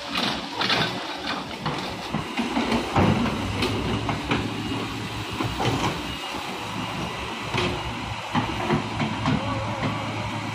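Earthmoving machinery running at a steady engine hum, with scattered clanks and knocks over it.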